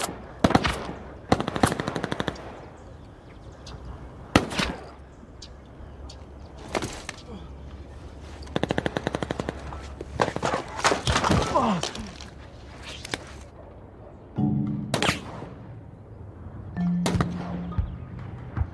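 Gunfire: scattered single shots and two rapid automatic bursts, one about a second and a half in and a longer one near nine seconds.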